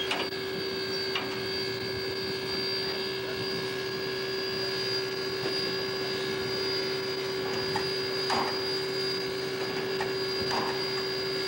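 Steady hum with a constant high whine over hiss, broken by a few faint brief sounds.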